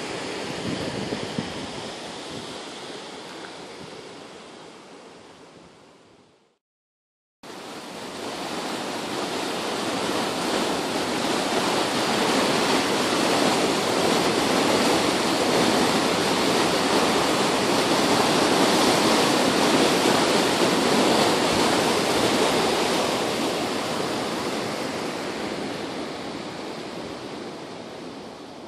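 Fast-moving muddy floodwater rushing through a swollen creek, a steady rush of turbulent water that swells and then slowly fades. Before it, wind and water noise on the microphone fades out into about a second of silence some six seconds in.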